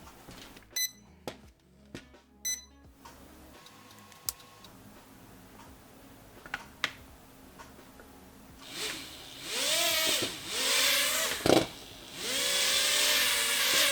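A few short clicks, then a toy-grade quadcopter's small brushed motors spinning up from about two-thirds of the way in, whining and rising and falling in pitch in several surges as the throttle is pushed up and down. This is a test run after one faulty motor was swapped for a motor taken from another drone of the same model.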